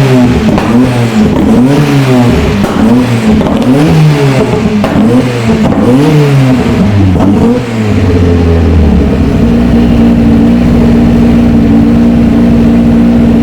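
Ford Escort RS Cosworth's turbocharged 2.0-litre four-cylinder engine revved in quick repeated blips, about one a second. About eight seconds in it settles to a steady, even running note.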